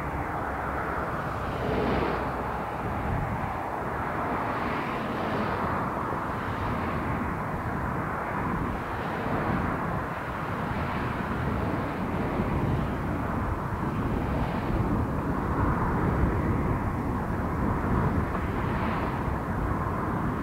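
Distant diesel engines of a heritage first-generation diesel multiple unit running as the train approaches: a steady drone that grows slightly louder in the second half.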